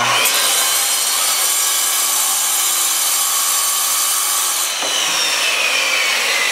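Handheld circular saw cutting through a granite slab: a loud grinding with a high motor whine that climbs as the saw starts and sinks steadily from about two-thirds through.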